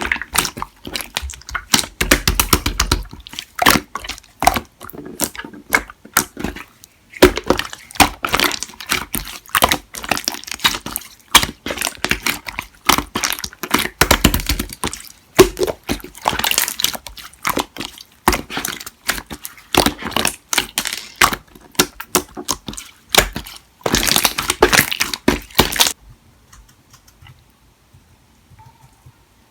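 Clear slime being squished and stretched by hand, giving a dense run of sticky crackling pops and wet squelches. The handling stops about 26 seconds in, leaving only faint ticks.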